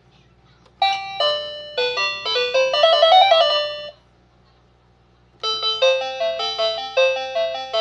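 Toy telephone playing electronic jingles of beeping notes: a quick tune about a second in, a pause, then a second tune with a bass line from about halfway through.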